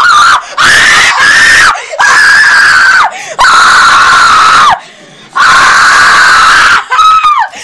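A young man screaming with glee, very loud: a run of about five long, high-pitched screams, each held a second or more with short breaks for breath, and a shorter falling scream near the end.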